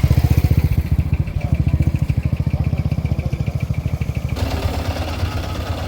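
An engine running with a rapid, even low throb; the sound changes abruptly about four and a half seconds in.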